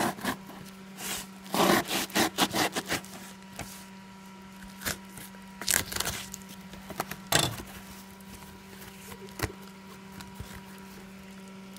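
A knife slitting packing tape, then tape and cardboard ripping as a taped box is pulled open: irregular scraping and tearing sounds in short clusters, over a steady low hum.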